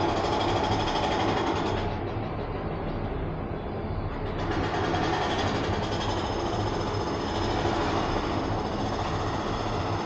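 Ride noise of a cable car gondola travelling along its cable: a steady mechanical rumble and hiss with a low hum, its higher hiss briefly falling away about two seconds in and returning about two seconds later.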